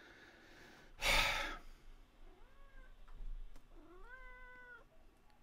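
A cat meowing twice: a short faint meow about two and a half seconds in, then a longer, steadier meow about four seconds in. A loud, brief breathy rush of noise comes about a second in.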